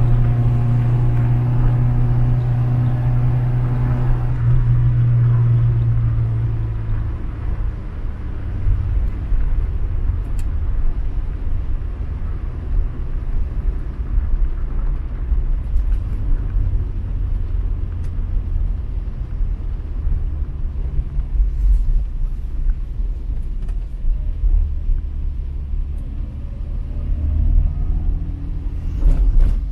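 Skoda car running on the move. A steady engine note for the first few seconds eases off, leaving a low rumble of engine and road noise.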